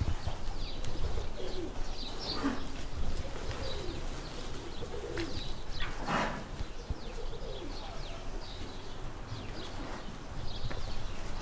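Pigeons cooing low while small birds chirp over and over in quick high notes, with one louder, brief call about six seconds in.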